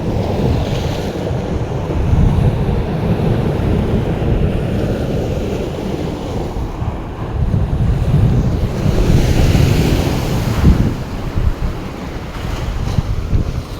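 Wind buffeting the microphone in a heavy low rumble, over surf washing on the shore that swells up about a second in and again near the ten-second mark.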